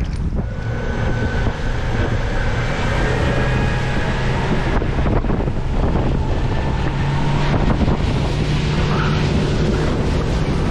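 Wind buffeting the microphone aboard a boat on the river, over a steady low motor hum that rises slightly in pitch about seven seconds in.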